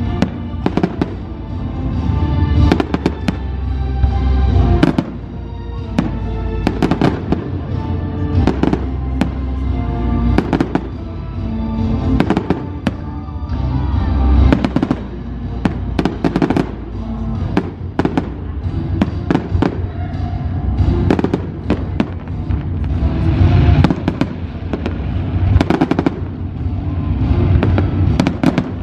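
Aerial fireworks shells bursting in rapid succession, many sharp bangs and crackles one after another, over loud music accompanying the display.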